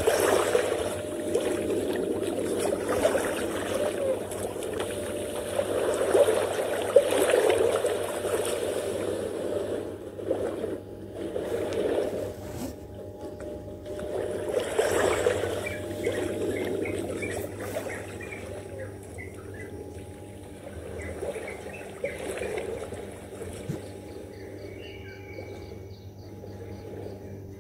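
Small waves washing in and out on a sandy shore, swelling and fading every few seconds and growing quieter in the second half. Faint bird chirps come in over the second half.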